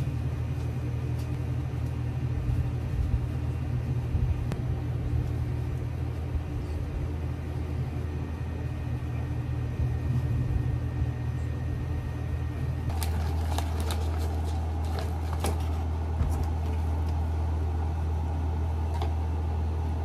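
Steady low hum of room noise. About two-thirds of the way in the hum shifts and a short run of small clicks and taps comes in.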